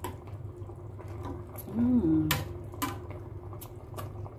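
Metal spoon clinking and scraping against a stainless steel pot while stirring fish simmering in coconut milk, about half a dozen sharp clinks. A short hummed voice sound just before the loudest clinks, over a low steady hum.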